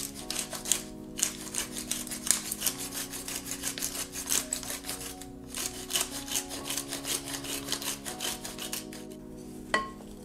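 Wooden pepper mill being twisted to grind pepper, a fast grinding rasp in two spells with a short break about halfway. A single sharp tap near the end. Soft background music underneath.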